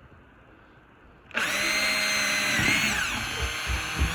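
Power drill starting up about a second in and running steadily as it drills a hole in a cooler lid. Its whine dips slightly in pitch partway through as the bit bites into the lid.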